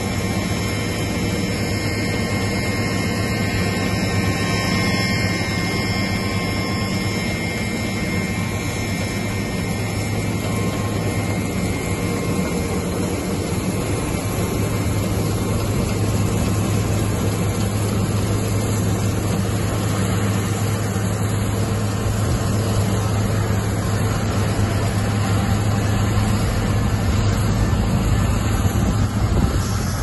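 Combine harvester working in wheat with a tractor and chaser bin running alongside: a loud, steady machinery drone with a constant low hum.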